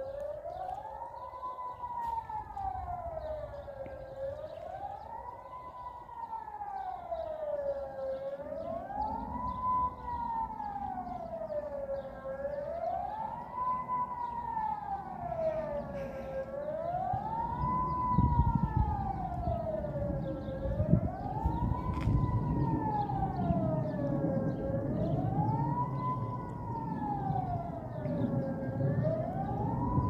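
Outdoor civil-defence warning siren sounding a test alarm: one wailing tone rising and falling in pitch about every four seconds, over a low rumble that grows louder in the second half.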